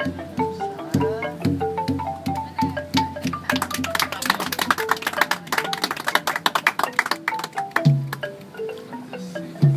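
Live traditional Khmer music: a roneat ek, the boat-shaped wooden xylophone, plays a stepping melody of struck notes. In the middle comes a stretch of rapid, clattering strikes, and deep barrel-drum strokes sound twice near the end.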